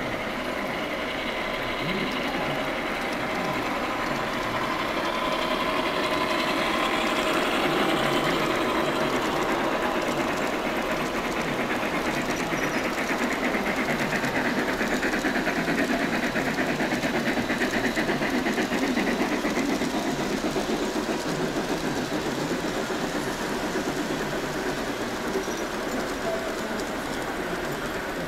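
Large-scale garden-railway model train running past on the track. A fast, busy mechanical clatter of wheels and drive grows louder as the locomotive and cars pass close, then eases off.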